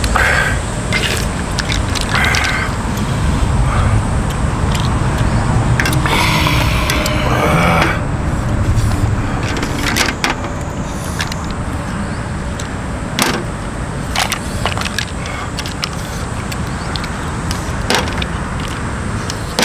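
Mussel shells and metal chopsticks and spoon clicking against a pot as people eat, over a steady low rumble.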